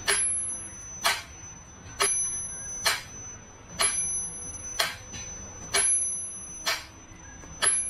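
Mechanical pyramid metronome ticking at a slow, even beat, about one click a second, with a high bell-like ring on every second beat.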